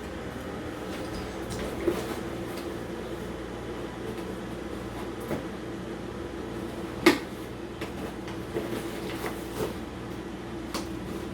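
Scattered taps and knocks of a parcel box and its packaging being handled, with one sharper knock about seven seconds in, over a steady low hum.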